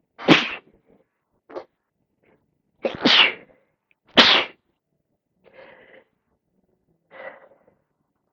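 A person with a congested head cold sneezing three times, loud and sudden: once at the start, then twice close together about three seconds in, with quieter breaths or sniffs between.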